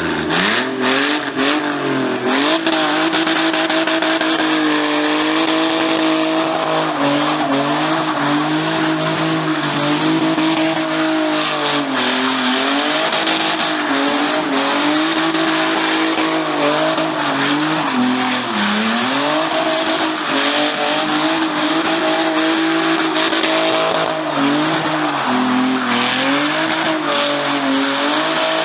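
Car engine held at high revs for a long burnout or drift, its pitch rising and dipping as the throttle is worked, with the spinning tyres squealing and hissing throughout.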